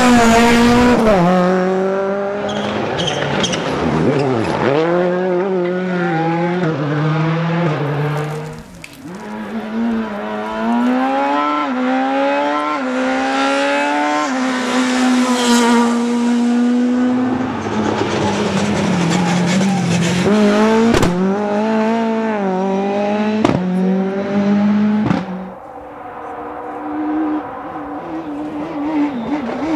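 Rally cars driven hard on a stage, engines revving up and dropping repeatedly through gear changes and lifts, with tyres squealing. The sound cuts between several separate car passes, and a couple of sharp cracks come through past the middle.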